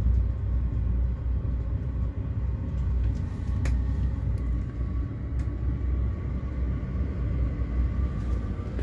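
Chinese diesel air heater in its start-up cycle before the burner lights: the blower fan runs steadily over a low rumble, with two faint ticks about a second and a half apart.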